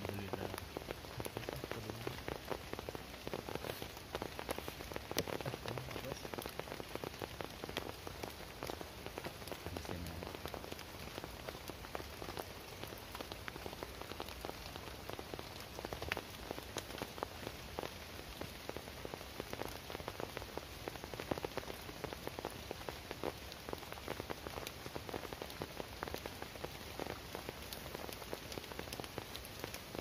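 Heavy rain falling steadily on a tarp shelter overhead, a dense scatter of individual drops ticking through the even hiss.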